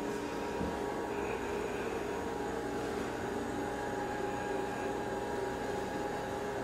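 Steady hum over a hiss, with a few held tones that do not change.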